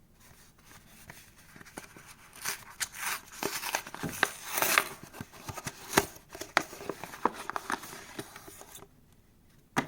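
A small product box being opened and its packaging handled: rustling, crinkling and scattered clicks, which die away about nine seconds in, followed by one sharp click near the end.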